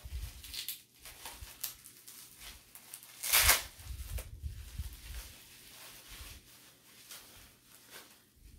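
Plastic bubble wrap crinkling and crackling in the hands as it is unwrapped, with one louder, longer rustle about three and a half seconds in; it grows quieter near the end.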